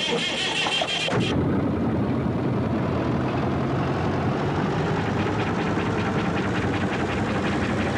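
Engine running steadily with a dense mechanical drone. A brighter, buzzing rattle is loudest for about the first second and then cuts off, leaving the steady running with a fine regular ticking.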